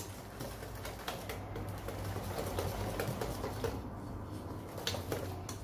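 Wire whisk beating cake batter in a stainless steel bowl, a fast, steady run of small metal ticks as freshly added flour is worked into the egg, oil and sugar mix.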